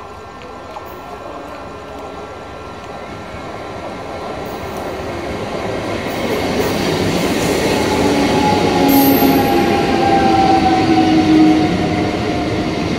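ICF MEDHA three-phase electric multiple unit local train approaching and running past close by, its rolling rumble growing steadily louder over the first eight seconds or so. In the second half a thin whine rides over the rumble and slowly falls in pitch as the carriages go by.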